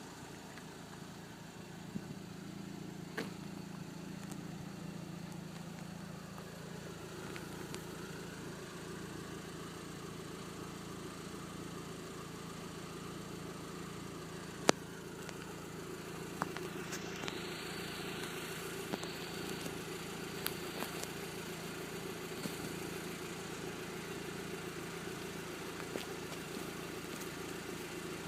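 Volkswagen Golf GTI Edition 35's turbocharged 2.0-litre four-cylinder idling steadily at an even pitch, with a few sharp clicks now and then.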